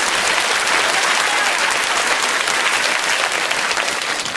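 Studio audience applauding, a steady clapping that fades slowly near the end.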